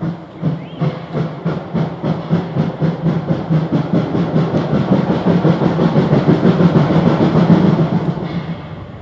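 Saxon narrow-gauge class 99.77 steam tank locomotive chuffing in quick, even exhaust beats, about four a second, growing louder as it approaches. The beats drop away sharply about a second before the end.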